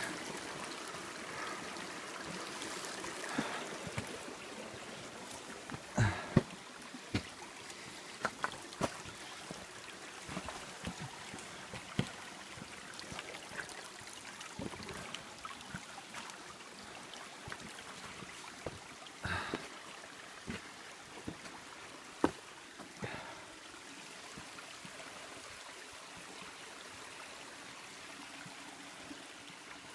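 Small rainforest creek trickling steadily over rocks, with scattered footsteps and knocks on wet stones and brushing through ferns as someone walks along the creek bed.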